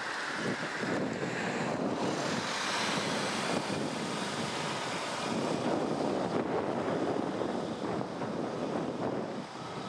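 Wind blowing across the microphone: a steady, unpitched rush that swells and eases a little as it gusts.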